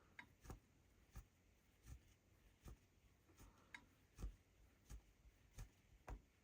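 Faint, soft pops of a rug hook pushing through the backing and pulling wool loops up, about ten in a steady rhythm, one every half to three-quarters of a second.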